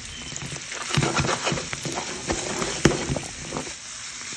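Stir-fry sizzling in a nonstick frying pan while it is stirred, with a run of short clicks and knocks of the stirring against the pan from about a second in, the loudest knock a little before three seconds.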